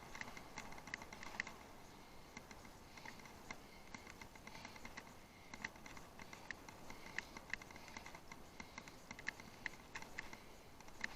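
Faint, irregular light clicks and rattles from a bicycle riding over rough ground, over a steady hiss.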